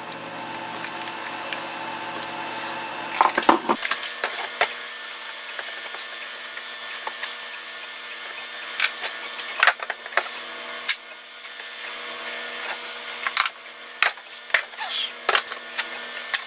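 Scattered clicks and knocks of an aluminium-extrusion frame, printed plastic corner pieces and small screws being handled and tightened with a screwdriver. A steady hum runs underneath.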